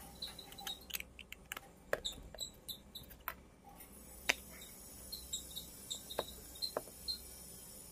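Light clicks and taps of a snap-on metal case back being fitted and pressed onto a chronograph watch case by hand, several scattered small ticks with the sharpest about two seconds and four seconds in.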